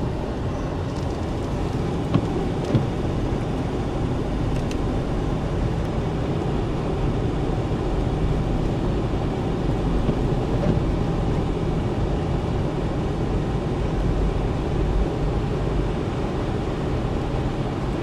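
A four-wheel-drive vehicle driving on snowy roads, heard from inside the cabin: a steady, low rumble of engine and tyre noise. Two light knocks come about two seconds in.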